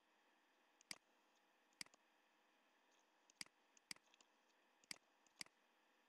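Computer mouse button clicking: six or seven single sharp clicks, spaced unevenly.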